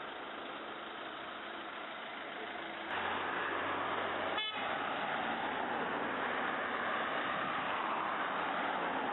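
Vehicle engine and road noise, a steady rumble that gets louder about three seconds in.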